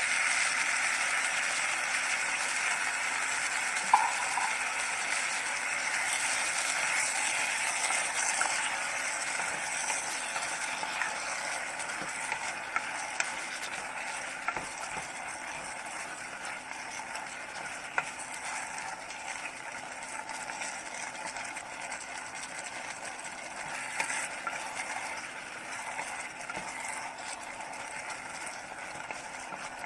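Cabbage, tomato and canned sardines in tomato sauce sizzling in a hot pan, gradually quieter, while a spoon stirs them with a few sharp knocks against the pan.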